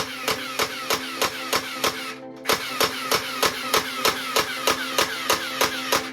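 Battery-powered toy gun's electronic firing sound: rapid repeated shots, about three a second, each a click with a short falling chirp, over a steady buzz. It breaks off briefly about two seconds in and then carries on.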